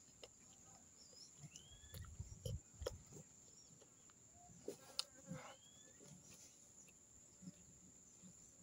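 Near silence with faint yard sounds: a few soft rising bird chirps and a steady thin high-pitched tone, with scattered soft clicks and thumps of someone chewing and eating with the fingers.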